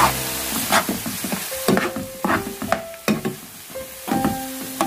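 A metal spoon scraping and stirring julienned zucchini in a nonstick frying pan, in quick strokes roughly two a second, over soft sizzling as the zucchini stir-fries.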